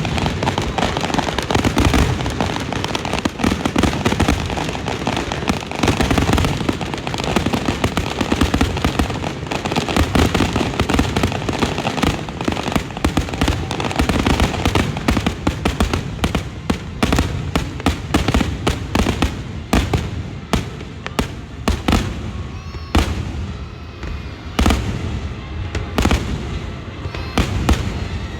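Fireworks display: a dense barrage of overlapping bangs and crackles that thins to more separate bursts in the latter part.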